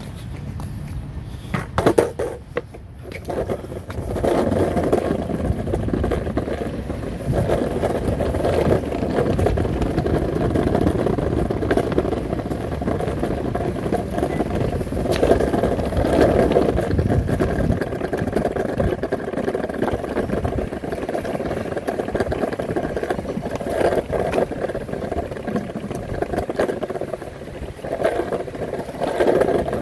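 Surfskate wheels rolling over pavement: a steady rolling noise that swells and eases as the board carves, with a sharp knock about two seconds in.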